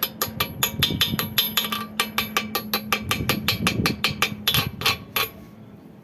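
Rapid hammer strikes on steel, about six a second and ringing, stopping about five seconds in. This is typical of a chipping hammer knocking slag off a fresh stick weld.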